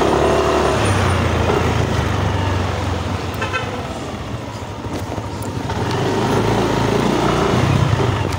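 Yamaha Mio Aerox 155 scooter's single-cylinder engine running as it rides slowly along a street, its pitch rising and falling as the throttle opens and eases off near the start and again near the end.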